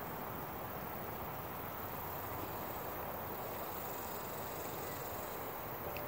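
Steady outdoor background noise: an even hiss with no distinct duck calls or splashes.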